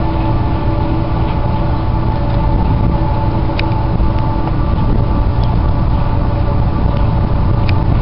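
A steady engine drone over a low rumble, holding a few constant tones, with a few faint clicks.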